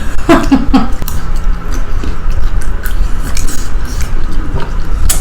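Cutlery clinking against plates, with scattered small clicks of people eating, over a steady low hum.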